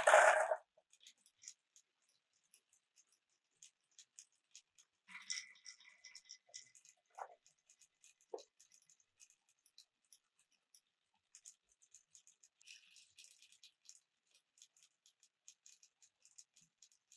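Marbles rolling and clicking through a wooden marble run: a loud clatter at the very start, then many light ticks throughout, a brief rattle about five seconds in and two short ringing taps soon after.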